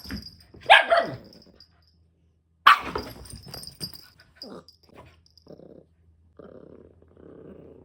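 Dog barking and growling over a bone it is guarding. A sharp bark comes about a second in and another near three seconds, followed by a run of short low growls.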